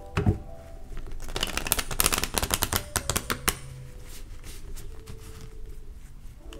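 A deck of cards being shuffled by hand: a soft thump just after the start, then a quick run of card clicks for about two seconds, starting about a second in.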